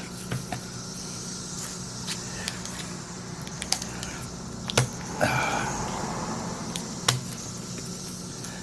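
Hand dismantling of a laptop's lithium polymer battery pack: scattered sharp clicks and crackles from the pack's tape and casing, with a short rustling scrape about five seconds in, over a steady low hum.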